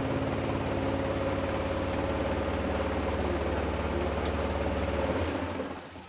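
Spin-tub motor of a Haier 7 kg semi-automatic twin-tub washing machine running a rinse spin: a steady hum with a faint whine, fading away near the end.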